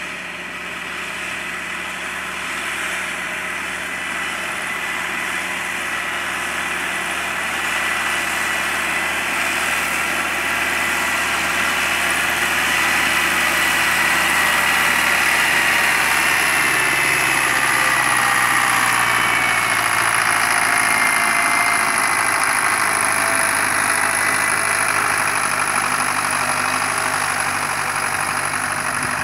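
MTZ-82 tractor's four-cylinder D-240 diesel, freshly overhauled, running under load as it tows a loaded two-axle trailer of clay uphill through mud. It grows louder as the tractor approaches, is loudest around the middle, and its note drops a little as it passes close by.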